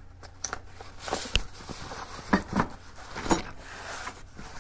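A fabric tool roll being unbuckled and unrolled on a steel table: a plastic side-release buckle unclipping, cloth rustling, and a few sharp clicks and knocks from the metal tools inside as the roll is laid flat.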